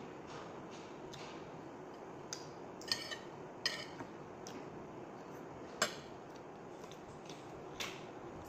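Metal fork clinking against a ceramic plate: several sharp, separate clinks, the loudest about six seconds in, over a steady low background noise.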